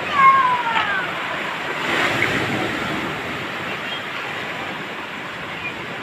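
Waves breaking and washing up over a pebble beach. Right at the start, a short high call that falls in pitch sounds over the surf.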